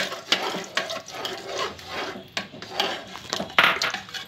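A ladle stirring and scraping in a pressure cooker of thick mutton gravy while flour-and-water slurry is poured in, with irregular knocks and scrapes against the pot; the loudest cluster comes near the end.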